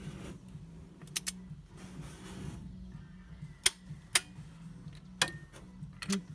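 Sharp metallic clicks and knocks, about six scattered irregularly, over a steady low hum, typical of hand tools and parts being handled during engine work.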